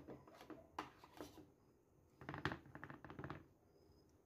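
Faint clicks and scrapes of a spoon against a ceramic bowl as refried beans are scooped out, with a denser run of scraping about two seconds in.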